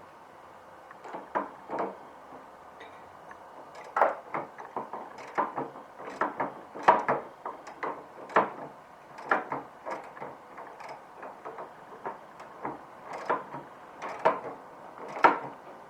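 A bolt being tightened with a hand tool: a long irregular run of sharp metallic clicks and knocks.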